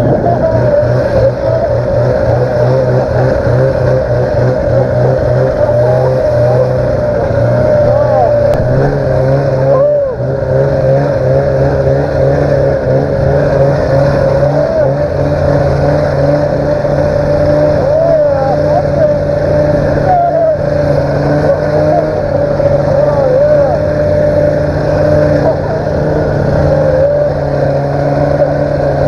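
Arctic Cat Panther 570 snowmobile's two-stroke twin engine running under steady throttle while the sled carves circles in snow with two riders aboard. The pitch holds nearly constant with small wavers, and the level dips briefly about ten seconds in.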